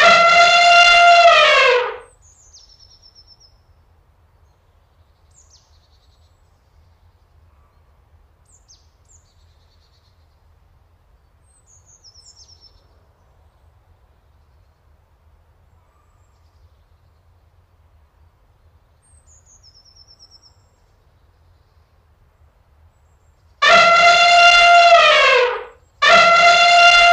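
African elephant trumpeting: three loud calls about two seconds each, each holding its pitch and then dropping at the end. One comes at the start and two follow close together near the end, with faint bird chirps in the quiet between.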